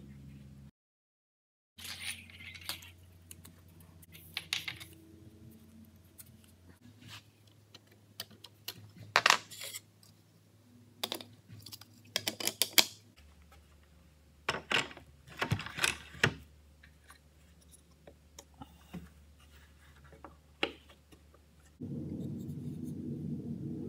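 Scattered clicks, taps and scrapes of jig parts and a router being handled and adjusted on a workbench, some sharper knocks among them, over a steady low hum.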